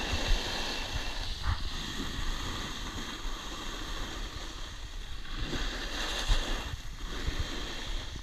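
Wind rushing over a helmet-mounted action camera's microphone during a fast descent, mixed with the hiss and scrape of edges sliding on groomed snow, with scattered low knocks from bumps in the slope.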